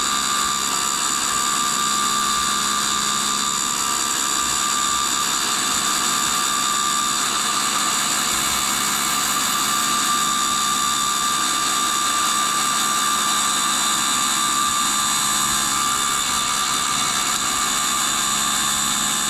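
Tool and cutter grinder running, its reinforced abrasive cutoff wheel grinding through a high-speed steel tool blank that the motorized work head turns against it. A steady whine with a hiss of grinding.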